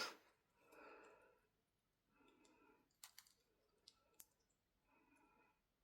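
Near silence with a few light clicks, about four in a second and a half, and faint soft rustles, as a plastic fashion doll and its accessories are handled.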